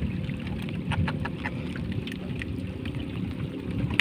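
Steady low rumble of wind and water around a small wooden boat on open water, with scattered light clicks and taps.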